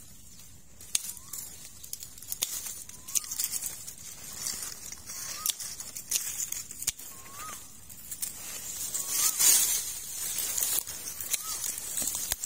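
Dry twigs and brush snapping and crackling, with leaves rustling, as someone cuts and pushes into dense scrub: many sharp cracks, with a louder swell of rustling about nine seconds in.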